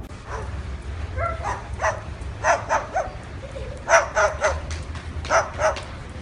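A dog barking repeatedly in short barks, some in quick runs and others spaced out.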